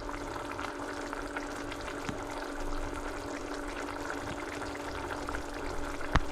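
Spiced potato curry in water simmering in a pot, a steady bubbling and crackling as the potatoes cook soft, over a steady low hum. A sharp click near the end.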